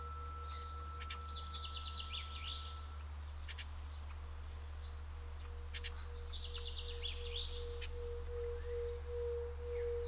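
Tibetan singing bowl ringing a steady tone that swells and begins to pulse in the second half, with a higher ring fading out about three seconds in. A songbird sings two short, fast trills, about a second in and again after six seconds.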